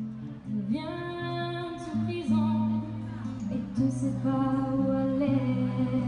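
A woman singing a slow melody in long held notes over an acoustic guitar, played live through microphones.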